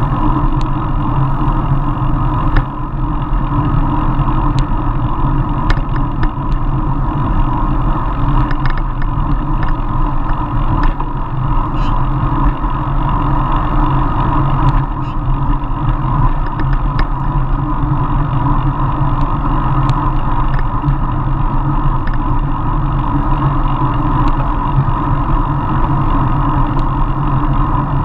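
Steady rumble and wind noise from a road bicycle riding fast on asphalt, heard through the bike-mounted camera's microphone, with scattered faint clicks.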